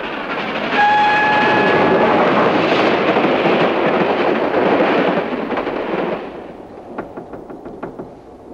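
Steam locomotive and train rushing past at speed, with one whistle blast of about a second and a half early on. The rush dies down near the end into a quieter running sound with a quick run of light clicks.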